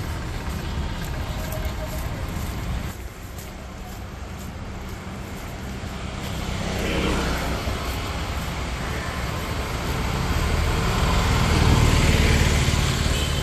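Light street traffic: vehicle engines and tyres rumbling on the road. One vehicle goes past around six to eight seconds in, and a louder one comes through near the end.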